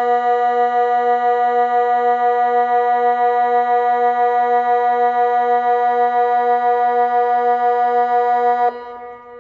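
Civil-defence siren sounding the Swiss water alarm: one long low tone held at a steady pitch with a slight regular wavering, cutting off sharply near the end and leaving an echo dying away.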